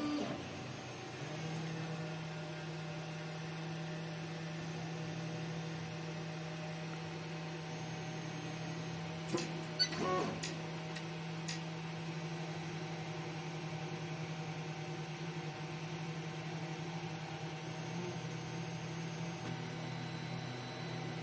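Pratham 3.0 3D printer's stepper motors humming steadily at one pitch as the machine homes at the start of its auto bed-levelling routine, with a few light clicks about nine to ten seconds in.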